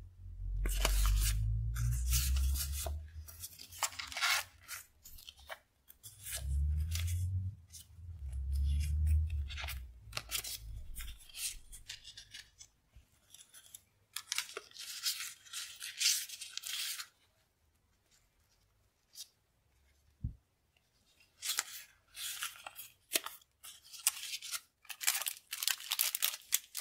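Paper sticker sheets and a clear plastic sticker packet handled and shuffled close to the microphone: crisp, crinkly rustling in bursts, with a few soft low bumps in the first half and a quiet pause about two-thirds of the way through.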